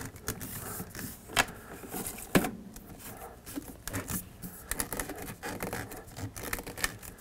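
Plastic plumbing fittings being handled and hand-tightened on a plastic pipe: irregular clicks, scrapes and knocks of plastic on plastic, with two sharper knocks about one and a half and two and a half seconds in.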